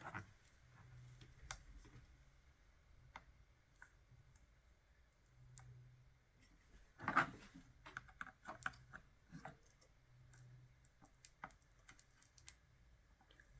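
Faint, scattered small clicks and taps of tools and parts being handled on an electronics workbench, with a short cluster of louder clicks about seven seconds in.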